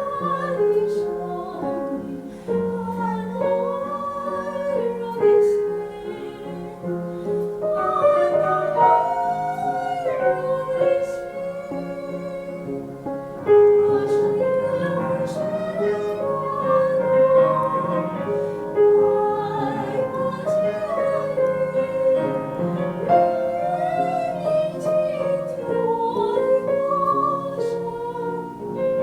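A woman singing in a classical, operatic style with vibrato, accompanied by piano.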